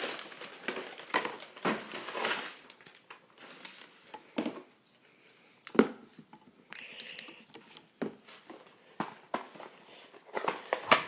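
Hands opening a cardboard hanger box of football trading cards: irregular crinkling, tearing and tapping of cardboard and packaging, with a short lull near the middle.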